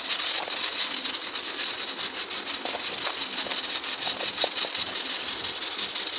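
Water at a rolling boil in a large steel pot, a steady bubbling hiss.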